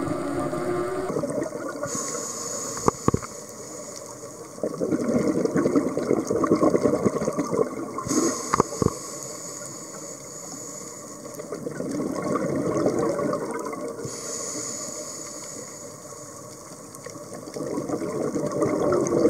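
Scuba diver's breathing through a regulator, heard underwater: a high hiss on each inhale alternating with a rush of exhaled bubbles, repeating about every six seconds. Two sharp clicks sound, about three seconds in and near the middle.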